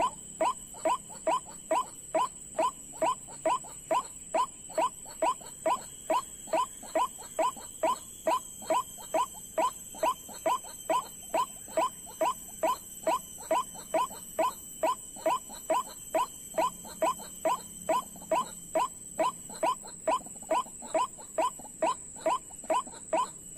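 White-breasted waterhen (ruak-ruak) call, a short falling 'kruak' repeated very evenly about two and a half times a second without a break.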